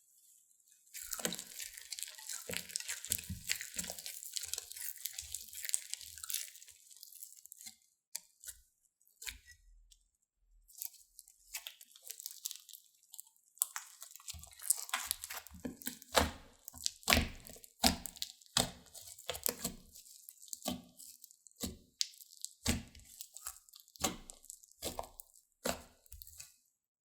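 Slime being handled. It starts with several seconds of fine, continuous crackling and tearing, then gives a run of sharp wet pops and clicks, about one or two a second, through the second half.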